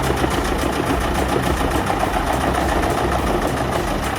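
TCS Donar 5810V truck-mounted wood chipper running, its diesel engine giving a dense, steady mechanical noise.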